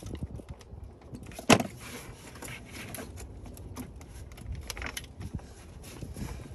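Scattered clicks and clinks of hand tools and parts being handled in a car's engine bay, with one sharp knock about a second and a half in.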